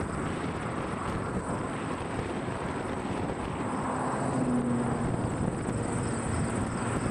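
Steady low rumble of the Challenger steam locomotive and its train moving away in the distance, mixed with wind on the microphone. A faint, short low tone comes about four and a half seconds in.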